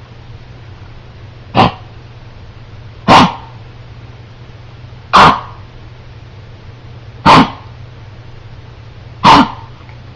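Dog coughing: five single harsh coughs, about two seconds apart, the cough it woke up with.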